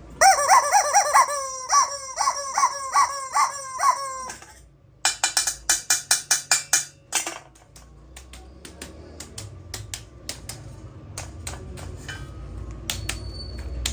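Playful sound-effect music: a quick run of about eight falling chirps, then a fast even series of sharp taps, followed by scattered faint clicks over a low hum.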